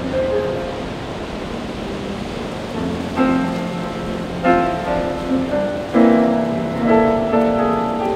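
Solo grand piano music, slow single notes and chords, with new chords about three seconds in and again near the middle, over a steady wash of ocean surf.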